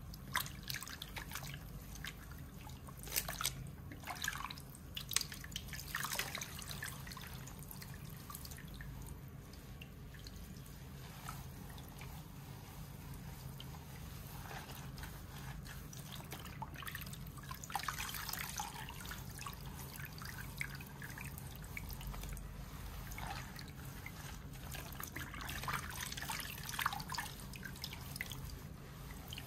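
Water dripping and trickling from soaked hair into a salon shampoo bowl, with sharp little drips in the first few seconds. Then a towel is pressed and squeezed around the wet hair in several stretches of soft rubbing, with water squishing out.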